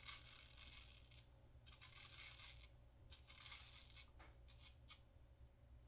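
Faint scraping of a single-edge safety razor with a GEM PTFE blade cutting stubble against the grain, in a series of short strokes.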